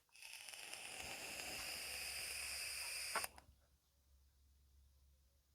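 A steady hiss of pressurised gas jetting from a nozzle for about three seconds, cut off abruptly with a click.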